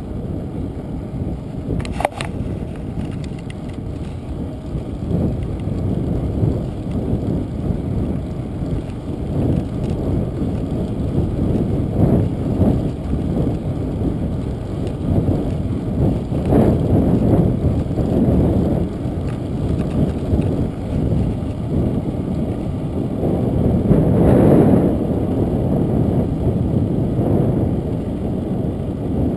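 Bicycle riding on asphalt, heard from the handlebars: tyre and road noise mixed with wind buffeting the microphone, steady but uneven. A sharp click about two seconds in.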